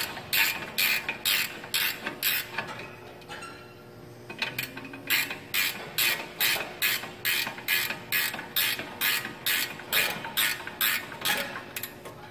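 A hand ratchet wrench clicking in quick runs, about two to three clicks a second, as it is swung back and forth to turn a nut on a truck's steering knuckle. The clicking pauses briefly about three seconds in, then carries on.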